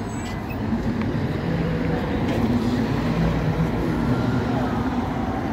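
A city bus's engine running as it passes through street traffic, getting louder about a second in.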